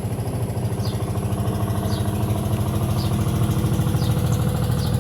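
A small engine running steadily with an even, rapid pulse, slowly getting louder.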